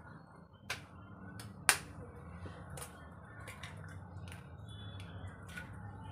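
Eggs tapped against the rim of a pan and cracked into a simmering curry: a series of short sharp clicks, the loudest about a second and a half in, over a low steady hum.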